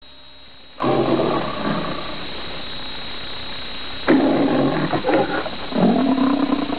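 The MGM trademark lion roaring on an old film soundtrack: one long roar about a second in, then two shorter roars near the end, over a steady hiss.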